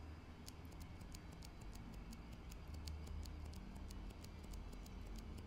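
A stock, unlubed Gazzew Boba U4 silent tactile switch being pressed repeatedly: faint, muted clicks, several a second, starting about half a second in.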